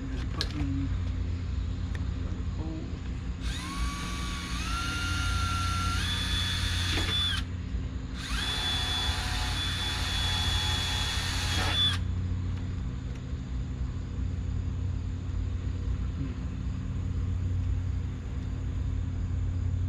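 Power drill run twice, about four seconds each, drilling holes for the wing mounting. Its motor whine steps up in pitch as it speeds up during the first run and holds steady in the second, over a steady low hum.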